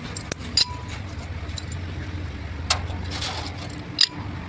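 Steel differential gears clinking and scraping as spider gears and their cross are fitted by hand into the differential case on a truck's crown wheel: a few sharp metallic clinks, near the start, about two and a half seconds in and near the end, over a steady low hum.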